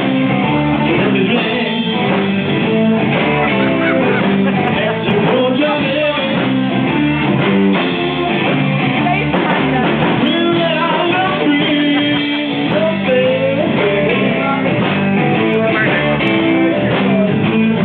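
Recorded rock-and-roll song playing without a break, with guitar and a singing voice.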